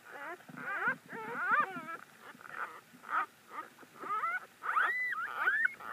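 Very young puppy squealing and crying in a rapid series of short high-pitched calls that rise and fall in pitch.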